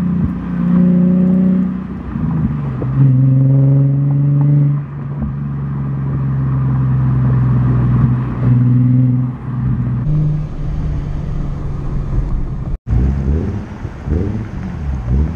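Infiniti G37's 3.7-litre V6 breathing through an ARK Grip exhaust while the car drives, recorded close to the tailpipes: a steady low exhaust drone that steps to a new pitch a few times as the revs change. Near the end the engine is blipped up and down a few times.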